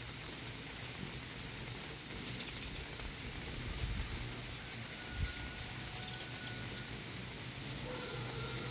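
Hummingbird chips and chatter: a scattered run of sharp, very high, squeaky ticks starting about two seconds in and dying away near the end, over a steady background hiss.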